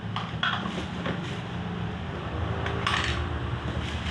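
Small metal parts clinking and knocking a few times as they are handled, the loudest knock about three seconds in, over a steady low hum.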